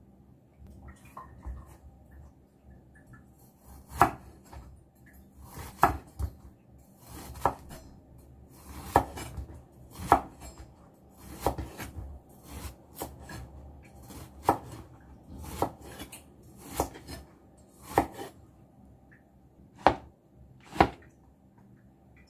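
Kitchen knife chopping a peeled loofah into chunks on a wooden cutting board. About a dozen sharp knocks of the blade through the gourd onto the board, roughly one a second, starting a few seconds in.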